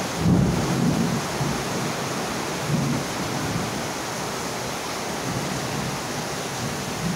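Steady rain with thunder: a low rumble swells just after the start and fades over about a second, and a weaker one comes about three seconds in.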